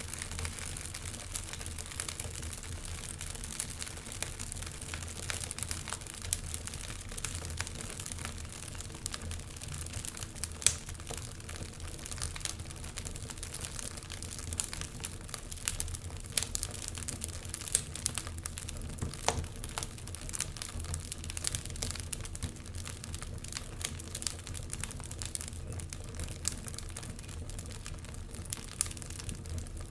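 Wood fire crackling with frequent small irregular pops and snaps, one louder pop about a third of the way in, over a steady low rumble.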